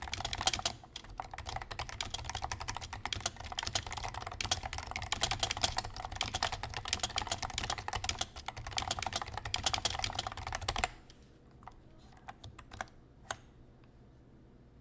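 Fast continuous typing on a Leopold FC660C Topre keyboard fitted with 50 g BKE Redux Light domes, lubed Novatouch sliders and GMK keycaps: a dense run of keystrokes. The typing stops abruptly about three-quarters of the way through, followed by a few single key presses.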